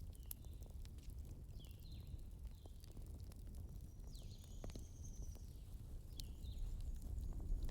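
Campfire crackling over a low rumble, with a few sharp pops. Several times a bird gives short chirps that fall in pitch, with one longer, higher call about halfway through.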